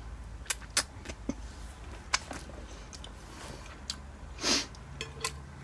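Close-miked eating sounds of pasta being chewed: a string of sharp wet mouth clicks, with one brief louder rush of noise about four and a half seconds in.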